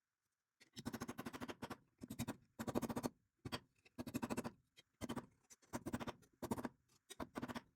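Rasping strokes of hand abrasion on a steel sickle blade, about a dozen strokes at an irregular pace of one or two a second, each under a second long.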